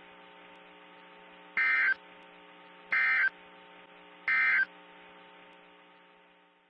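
Emergency Alert System end-of-message signal: three short, identical bursts of SAME digital data tones, evenly spaced a little over a second apart. Under them runs a faint steady hum that fades out near the end.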